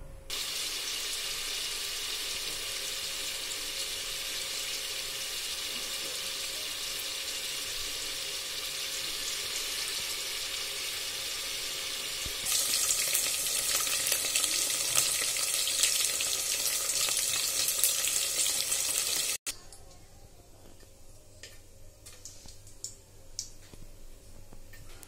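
A steady hiss from the pot heating on the gas stove, then about twelve seconds in a louder, brighter sizzle as paneer cubes fry in hot oil. The sizzle cuts off suddenly about seven seconds later, leaving faint clicks.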